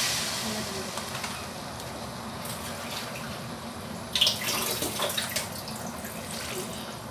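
Curry paste and vegetables sizzling softly in a wok, with liquid poured in from a pouch. A few sharp crackles come about four seconds in.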